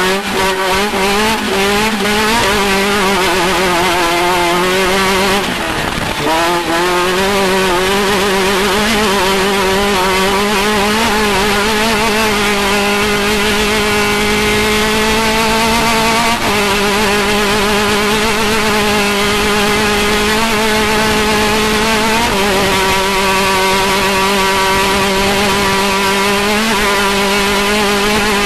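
Off-road race vehicle's engine running hard at high, near-steady revs, with brief lifts in revs about 6, 16, 22 and 27 seconds in.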